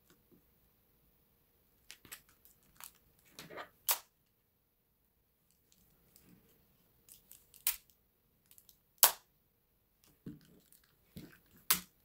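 Plastic clicks and knocks of a Toshiba A3013T flip phone being handled: folded shut, turned over in the hand and flipped open again. Sharp clicks come in short clusters, the loudest snap about nine seconds in and another near the end.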